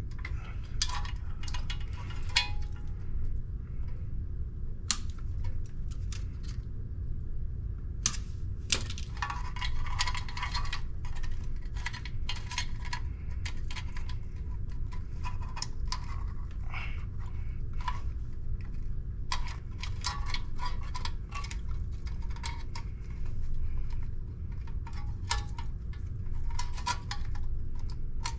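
Irregular small clicks, clinks and light scraping of hard objects being handled and worked by hand, in clusters with short pauses, over a steady low hum.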